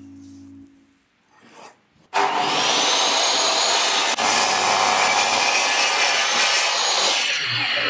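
Electric power saw cutting wood: the motor spins up with a rising whine about two seconds in, runs loudly and steadily through the cut, and winds down near the end.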